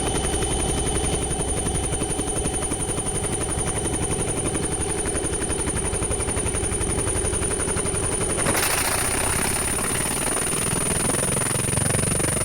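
Laser printer mechanism running with a fast, even chattering pulse over a low hum and a thin high whine; the sound changes about eight and a half seconds in.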